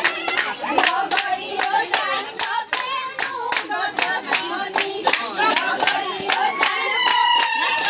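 Several people clapping their hands in a steady rhythm while a group of voices sings along.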